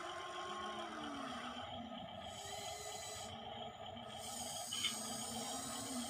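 Small electric motors of a Huina 1593 radio-controlled excavator whining as the arm and bucket move, the pitch rising and falling as the motors start and stop, over a steady background drone. A brief click about five seconds in.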